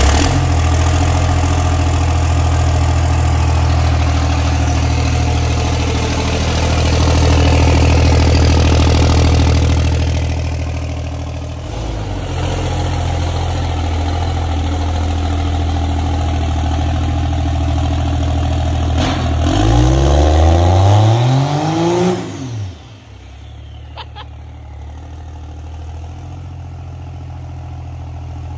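Ram pickup's engine running at a loud, steady idle just after starting. About twenty seconds in it revs up with a rising pitch, then drops off sharply to a quieter idle.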